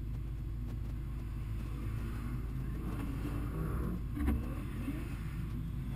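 Drift car's engine idling steadily, heard from inside the cabin, with a single short knock about four seconds in.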